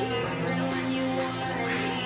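Background music with held tones; the bass note changes about half a second in.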